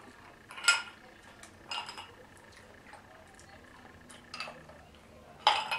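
Ice cubes clinking in a drinking glass as it is picked up and drunk from: a few short ringing clinks, then a louder clatter of ice and glass near the end.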